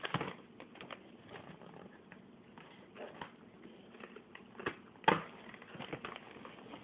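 Small plastic Stikbot package being picked and pried open by hand with a pen: scattered light clicks, taps and scratchy rustles, with the sharpest click about five seconds in.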